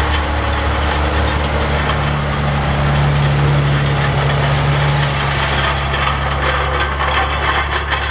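Schlüter tractor's diesel engine running steadily up close, a deep even hum that swells slightly in the middle.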